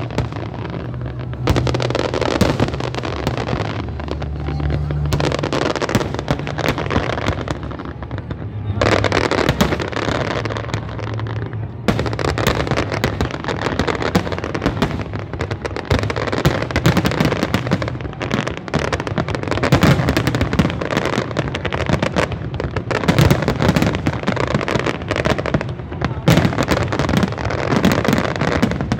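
Large aerial fireworks display: an unbroken barrage of shell bursts and crackling, many bangs overlapping each second.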